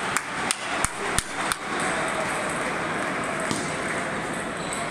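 Table tennis ball being bounced, five sharp ticks about a third of a second apart in the first second and a half. The even crowd hubbub of a large hall follows.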